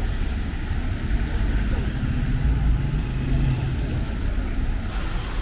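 Street traffic in heavy rain: a motor vehicle's engine runs close by, rising into a low hum about two seconds in, over a steady rushing hiss.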